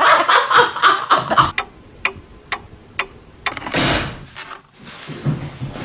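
Two men laughing loudly, breaking off after about a second and a half. Then about five sharp, evenly spaced clock-like ticks, roughly two a second, followed near four seconds in by a brief loud rushing noise.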